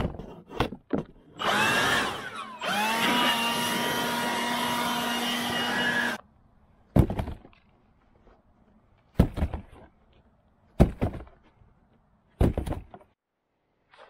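Leaf blower running in two blasts. A short one comes first; then it spins up with a rising whine and runs steadily for about three and a half seconds before cutting off, blowing old nest debris out of a backhoe cab's air-vent panel. Four separate knocks follow, each a second or two apart.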